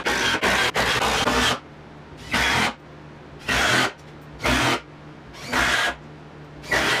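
Cordless drill/driver working into a plywood cabinet, first in one steady run of about a second and a half, then in five short bursts about a second apart, as screws are driven or holes drilled to fix the cabinet's stretchers.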